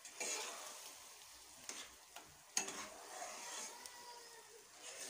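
A ladle stirring and scraping a thick kenaf-leaf (gongura) paste as it cooks in oil in a pan, with a light sizzle and a few louder scrapes against the pan.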